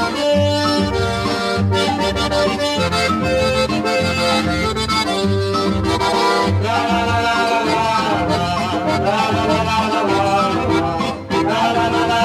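Accordion-led baião-style music with a steady pulsing bass beat.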